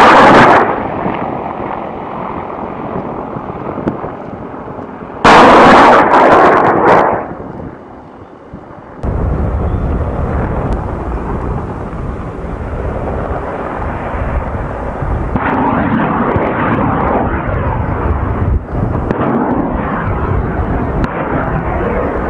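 Two loud bursts of gunfire from AH-64D Apache helicopters' 30 mm chain guns: one ends just after the start, the other lasts about two seconds around six seconds in. From about nine seconds on, the steady low rotor and engine sound of an Apache helicopter in flight.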